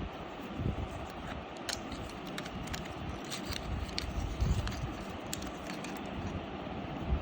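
Handling noise: scattered sharp clicks and irregular low thumps over a steady hiss.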